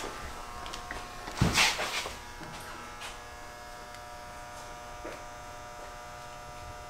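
A steady electrical buzz made of several fixed tones, with one loud knock or thump about a second and a half in and a faint click near five seconds.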